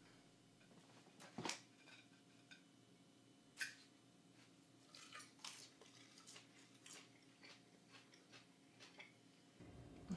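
Near silence, broken by a few faint, scattered clinks of a fork on a plate and soft chewing as a man eats a salad.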